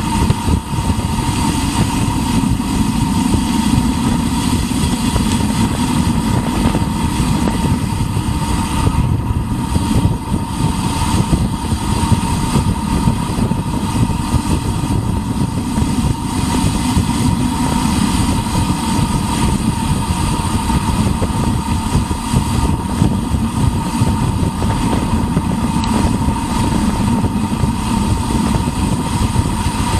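Steady wind noise on a bicycle-mounted action camera's microphone during a fast downhill ride, with a thin steady high tone over it.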